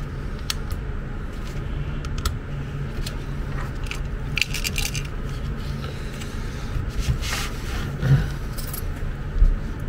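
Plastic clicks, taps and scrapes as the shell and button keypad of an electric medical bed's wired hand remote are handled and fitted back together, with a flurry of clicks midway and a dull knock near the end.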